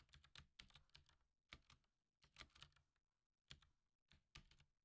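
Very faint typing on a computer keyboard: a quick run of keystrokes in the first second, then single taps about once a second.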